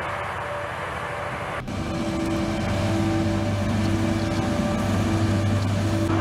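Heavy military truck's diesel engine running steadily. About one and a half seconds in the sound changes suddenly to a louder, steady low hum with a held higher whine.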